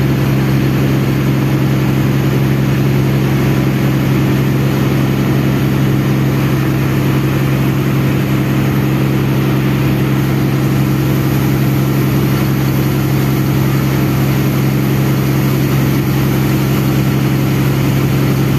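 Large riverboat diesel engines running steadily under way, a constant low drone over a rushing noise of wind and water along the hull.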